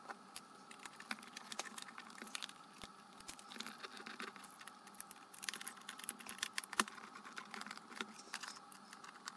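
Faint, scattered small clicks and taps of hands handling and turning over the plastic case of a DJI Phantom 3 SE remote controller after its range-extender modification.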